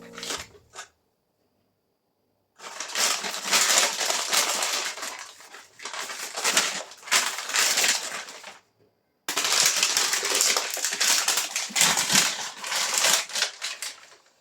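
Dense crunching, crackling noise in two long stretches, the first starting a few seconds in and the second after a sudden cut about nine seconds in.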